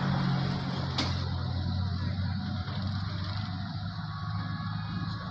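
Diesel engine running steadily with a low hum, with a single sharp click about a second in and faint high tones near the end.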